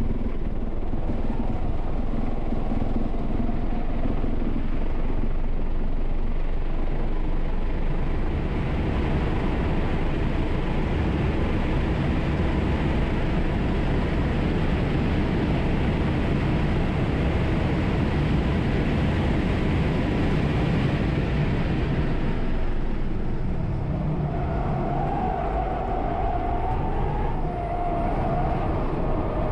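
Wind and road noise inside the cabin of a Tesla Model 3 Performance at full throttle on track, building to a steady rush at around 124 mph and easing as the car slows. Near the end, the Yokohama Advan A052 tyres squeal with a wavering tone as the car corners hard.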